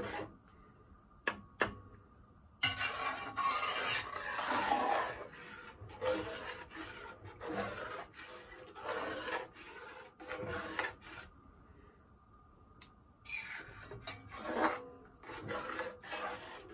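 A long-handled spoon stirring and scraping through thick carrot-and-milk pudding against the bottom of an aluminium pot, in irregular strokes with short pauses. Two light knocks come about a second and a half in.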